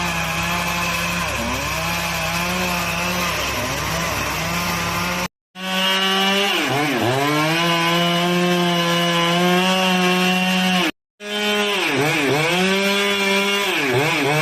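Chainsaw cutting up a fallen tree: the engine runs at high revs and drops in pitch several times as the chain bites into the wood, then picks back up. Two short gaps break the sound.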